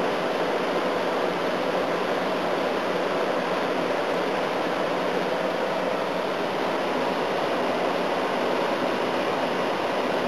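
Air-conditioning unit running with its fan on high: a steady, even rush of blown air with no change in level.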